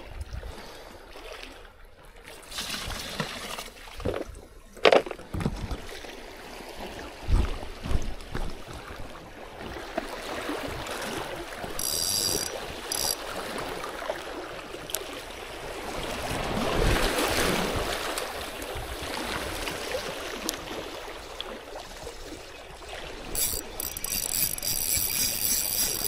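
Wind on the microphone and sea water washing against seawall rocks, with a few sharp knocks from gear being handled on the stones in the first seconds. Near the end a spinning fishing reel is cranked, giving a fast, even run of clicks.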